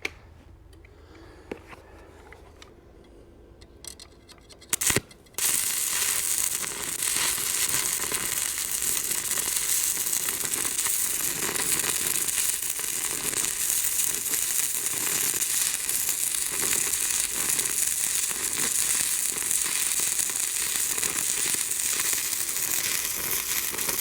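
Electric arc welding on a steel gate hinge: after a brief strike of the arc about five seconds in, a steady crackle and sizzle runs without a break as one long weld bead is laid. The first few seconds are quieter, with a few faint clicks.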